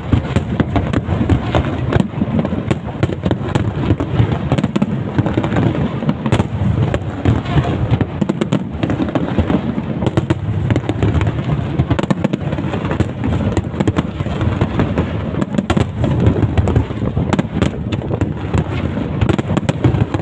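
Fireworks display: a dense, continuous barrage of bursts, many sharp cracks and pops over a steady low rumble.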